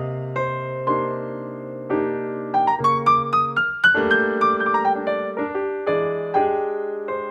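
Background piano music: a melody of single notes over sustained bass notes.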